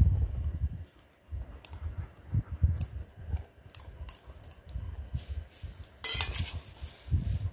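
Dog chewing and crunching rib and chicken bones close to the microphone, with sharp irregular clicks and a short crackling burst near the end, over low bumps of the phone brushing its fur.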